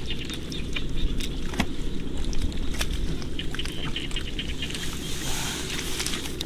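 Sloshing and splashing in shallow field water, with scattered short clicks and knocks and a stronger splash about five seconds in.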